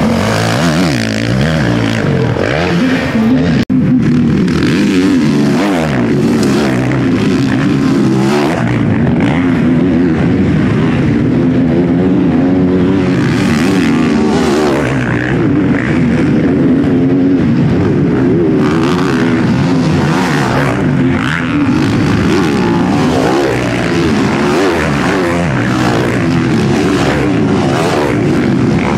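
Motocross bike engines revving hard and falling off again as the bikes race through the turns, several engines overlapping and rising and falling in pitch. There is a brief break in the sound about four seconds in.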